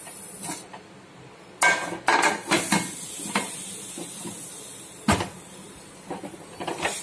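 Aluminium pressure cooker lid being fitted and closed: a series of metal clanks and scrapes, the loudest about a second and a half in and again about five seconds in.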